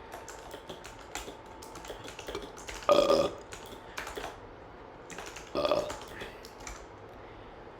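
A person burping deliberately: a loud burp about three seconds in and a shorter one near six seconds. Computer keyboard typing clicks run underneath.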